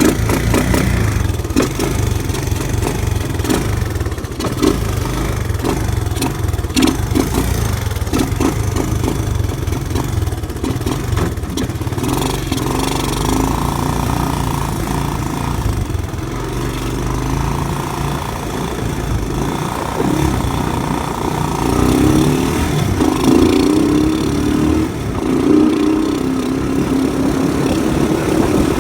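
1985 Honda 200M's single-cylinder four-stroke engine being pull-started by its recoil cord with the throttle held, then running with the throttle opened and closed, its pitch rising and falling several times in the second half. The engine has just had its carburetor refitted and may still need its idle screws adjusted.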